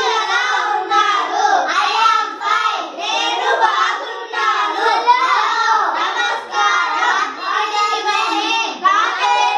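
Young schoolchildren singing together, a continuous song with short breaks between phrases.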